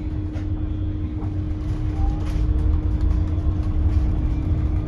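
Ride noise inside a moving city bus: low engine and road rumble with a steady hum.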